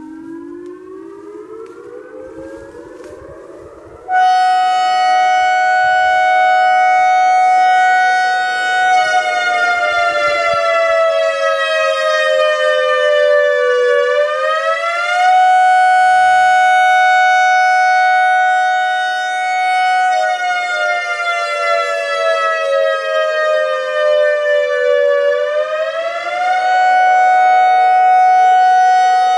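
ACA Alertronic AR-1600 electronic outdoor warning siren sounding. A fainter rising siren tone is followed about four seconds in by the loud, buzzy siren tone cutting in. It holds a steady high pitch, slides slowly down, then snaps back up, twice.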